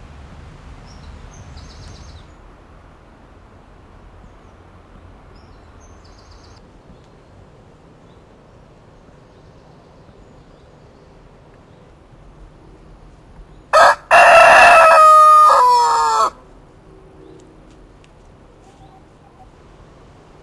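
A rooster crows once, about fourteen seconds in: a short first note, then a long drawn-out note that falls in pitch at the end, lasting about two and a half seconds in all. Faint small-bird chirps come earlier over a low steady hiss.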